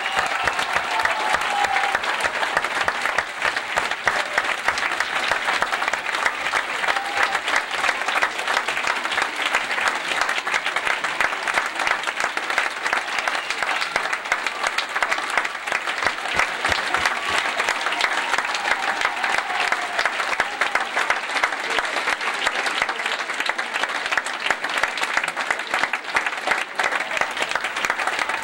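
Large theatre audience applauding steadily, a dense wash of clapping with no break.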